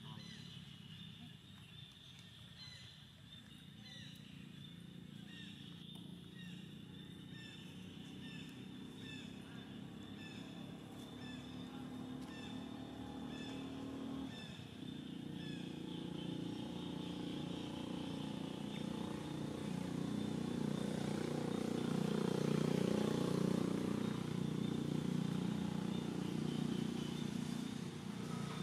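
A motor vehicle's engine grows louder over several seconds, is loudest a little past the middle and then eases off somewhat. Short high chirps repeat about once a second in the first half.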